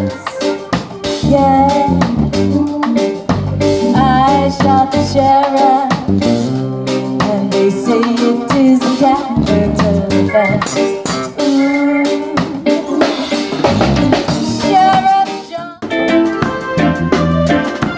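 Live reggae band playing: a woman singing over drum kit, guitar and keyboard. About two seconds before the end the music breaks off and a different passage starts.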